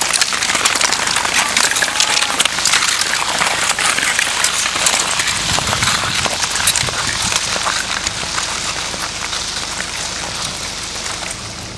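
Mass start of ice-marathon racers on lake ice: a dense crackling, scraping noise of skate blades and tyres on the ice that slowly fades as the field moves off.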